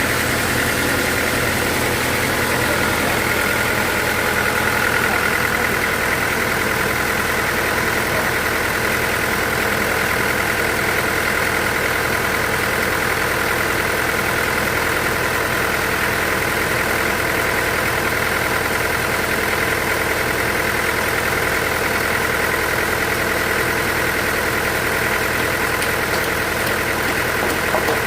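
Band sawmill running steadily: a constant machine drone with a few steady high whining tones and no change in pace.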